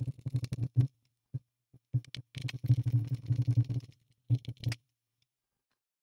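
Screwdriver driving screws back into the bottom case of an ASUS X553S laptop, in bursts of rapid clicking: one near the start, a longer one from about two to four seconds in, and a short one just after.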